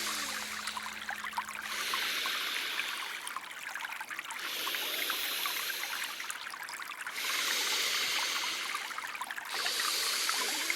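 Recorded stream water trickling and running steadily, with a hissing sound that swells and fades about every two to two and a half seconds.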